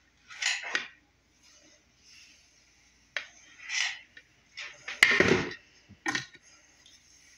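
Rustling and handling noises of hair being worked with a flat iron and fingers: several short brushing bursts, with a sharp click followed by a thud about five seconds in.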